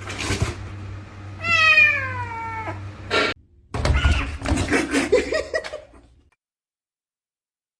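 A cat meowing once, a single drawn-out call falling in pitch, about a second and a half in. A short sharp knock follows, then a couple of seconds of mixed noise before the sound cuts off to dead silence.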